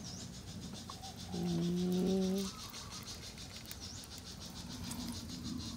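Insects chirring steadily in a fine, rapid pulse. About a second in, a low, level hum lasts about a second and is the loudest sound, like a voice humming or an animal calling.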